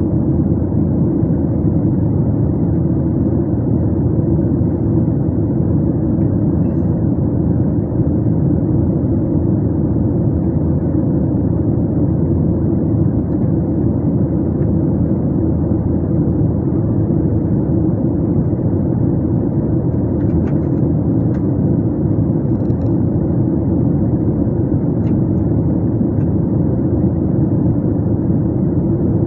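Steady low roar inside the cabin of a Boeing 737 jet airliner in cruise: engine and airflow noise, with a few faint ticks about two-thirds of the way in.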